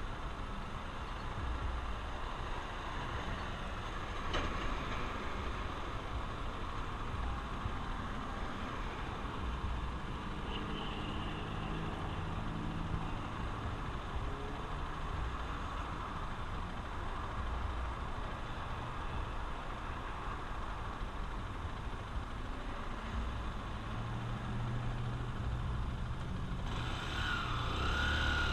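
Honda XR150L's single-cylinder four-stroke engine running steadily while riding, with wind and road noise; near the end the sound grows louder and wavers up and down in pitch.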